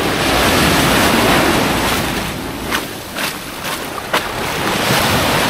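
Sea waves washing onto the beach, the surf swelling in the first couple of seconds, with wind on the microphone and a few short sharp sounds around the middle.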